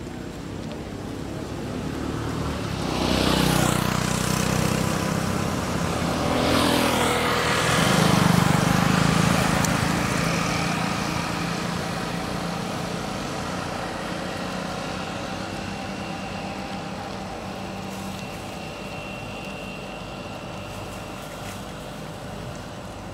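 A motor vehicle passing, its engine and noise growing louder over the first few seconds, loudest between about three and nine seconds in, then slowly fading away.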